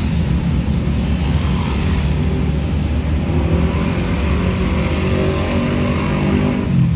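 Engine and road noise of a vehicle driving in traffic, with an engine note that climbs slowly in pitch through the second half as it accelerates.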